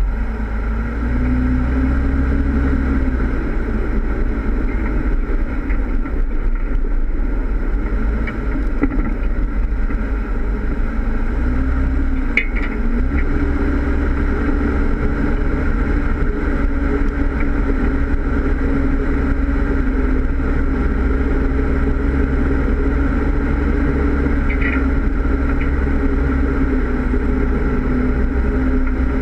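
Jeep Wrangler engine running at low trail speed, heard close up from the bumper, its note dipping and rising a little with the throttle. Two short high clicks come about twelve and twenty-five seconds in.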